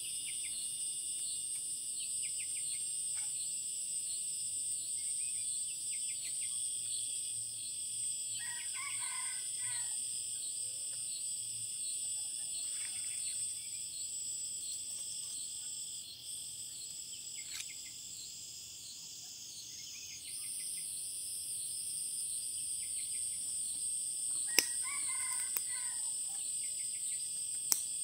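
Steady high-pitched chorus of forest insects with a fast regular pulse. A rooster crows twice, about eight seconds in and again near the end. Two sharp clicks come near the end.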